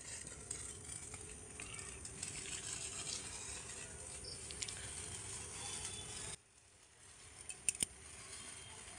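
Hand-held sparkler fizzing with a steady hiss, which stops abruptly about six seconds in. Three sharp clicks follow close together near the end.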